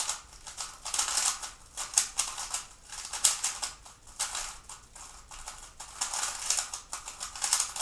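3x3 speed cube being turned fast by hand: rapid runs of plastic clacks in bursts, broken by brief pauses.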